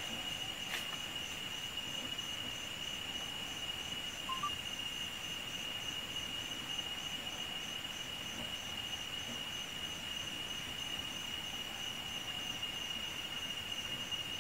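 Rainforest insects droning: one steady high-pitched tone with a faint, rapidly pulsing trill above it, and a single sharp click about a second in.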